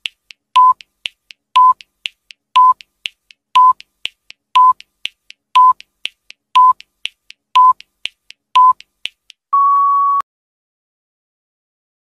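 Countdown timer sound effect: quick ticking with a short beep once a second, nine beeps in all, ending in one longer, slightly higher beep about ten seconds in as time runs out.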